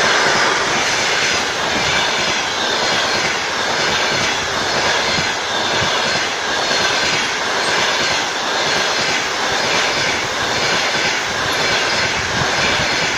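Passenger coaches of a train rolling past at speed: a steady, loud rush of wheel-on-rail noise with a regular repeating beat.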